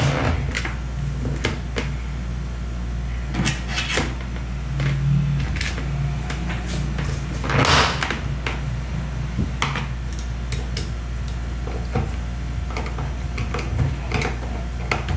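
Plastic clicks and knocks from a Taiff hair dryer's casing cover being handled and fitted back on, with one longer scrape a little before halfway and a steady low hum underneath.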